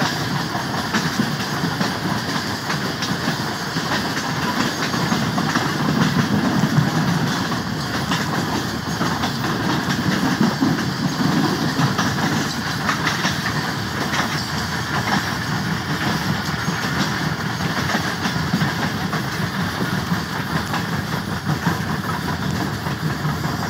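Train running on the rails: a steady rumble with wheels clacking over the rail joints.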